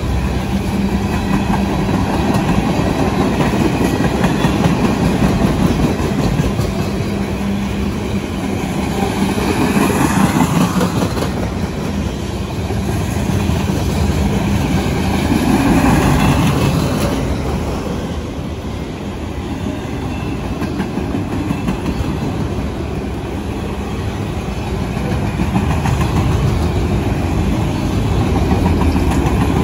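Freight train cars (tank cars, a covered hopper, autoracks) rolling past close by, a continuous rumble of steel wheels on rail that swells and eases as cars go by, loudest about a third of the way in and again near the middle.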